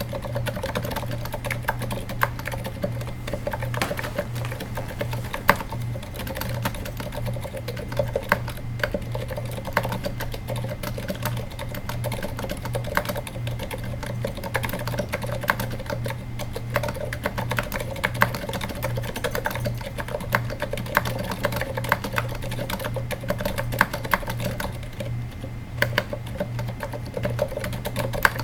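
Continuous typing on a Katana-60 keyboard with 78g Zilents silent tactile switches, which are rubber-dampened on both downstroke and upstroke, and /dev/tty keycaps in a low-profile aluminium case. The keystrokes are quiet, rapid and uneven, over a steady low hum.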